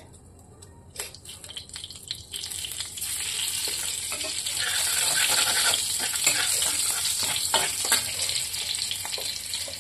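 A green chilli sizzling and crackling in hot oil in a kadhai. The sizzle starts about a second in and grows louder, while a long steel spatula stirs and scrapes against the pan.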